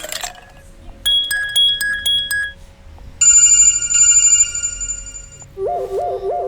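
Android 5.1 Lollipop phone ringtones playing in turn: a short beeping electronic pattern, then a louder sustained bell-like ring about three seconds in, then a low warbling tone repeating about three times a second starting near the end.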